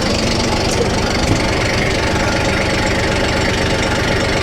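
Diesel engine of a piece of heavy equipment running steadily at close range, with a fast, even clatter.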